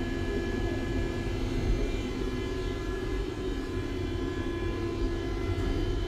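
Steady hum and low rumble of a Lastochka (Siemens Desiro RUS) electric train under way, with a continuous electrical whine of several steady tones, heard inside the train's toilet cubicle.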